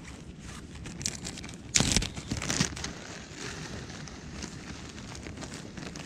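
Plastic bags being handled, crinkling and rustling, with a louder sharp crackle about two seconds in.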